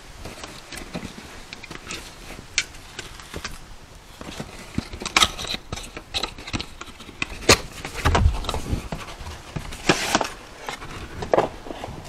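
Irregular clicks, knocks and rustling of hard plastic vacuum parts and packaging being handled and fitted together, with a dull thump about eight seconds in.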